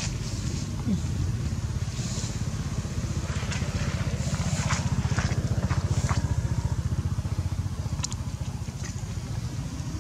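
An engine running steadily with a low, evenly pulsing rumble, with scattered short rustles and crackles over it.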